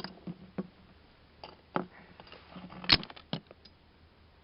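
Scattered light clicks and knocks of small metal hardware being picked up and handled, with one sharper click about three seconds in.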